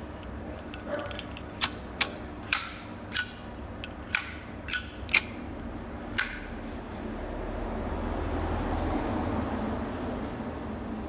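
Brass Zippo lighter being handled: about eight sharp metallic clicks with a bright ring, the hinged lid snapping open and shut, followed by a few seconds of soft rubbing noise.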